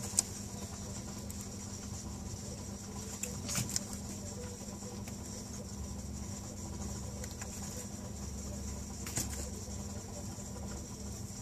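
A steady hum with a few short, sharp noises from a mating pair of Indian star tortoises, the clearest about three and a half seconds in and another about nine seconds in.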